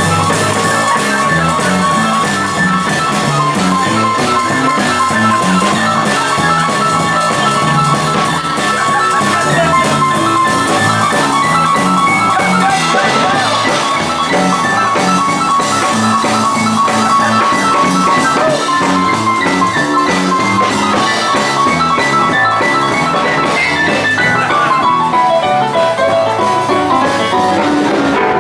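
Rockabilly band playing a boogie-woogie number, with piano and drum kit prominent. A descending run sounds near the end.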